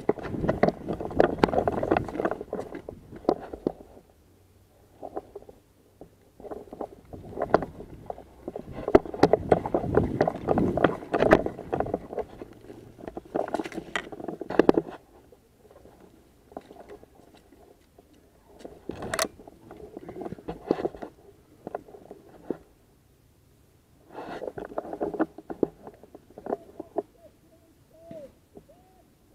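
Handling noise from a marker-mounted camera: scraping and rustling against clothing and gear as the paintball marker is carried, coming in bursts with quieter gaps. One sharp click about 19 seconds in.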